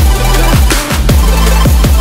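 Background electronic music with heavy sub-bass and a strong kick-drum beat.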